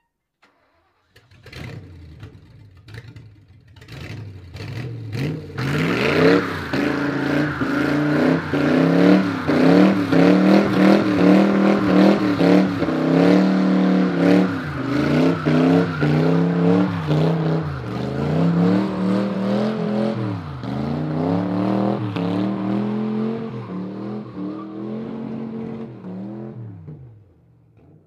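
1929 Ford Model A gasser doing a burnout: the engine comes in about a second in and blips a few times, then is held at high revs that rise and fall for about twenty seconds while the rear tyres spin and squeal. The engine and tyre noise drop away near the end.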